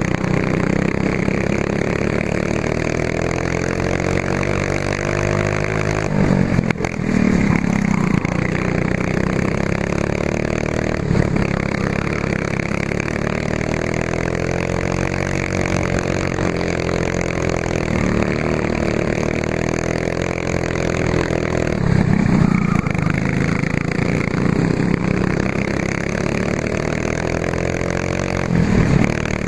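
F400-class racing kart engine running flat out, heard from a camera mounted on the kart. The revs climb steadily for several seconds at a time and drop sharply off, about six times, as the kart accelerates along the straights and lifts for the corners.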